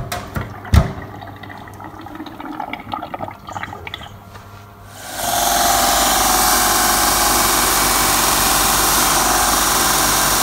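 Clicks and knocks of motorcycle fork parts handled over a steel sink, then, about five seconds in, a bench belt sander starts and runs steadily with a thin metal fork rod held against its belt.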